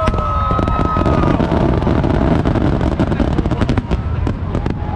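Aerial firework shells bursting in a fast, uneven run of bangs and crackles over a steady low rumble.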